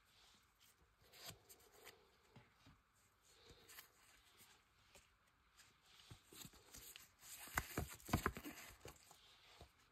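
Faint rustling and light taps of trading cards being handled, with a short cluster of sharper clicks and taps about seven and a half seconds in.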